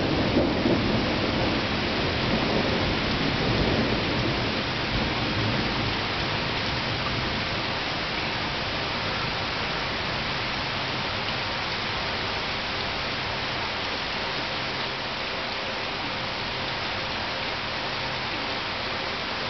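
Steady rain falling, with a roll of thunder rumbling through the first few seconds and dying away.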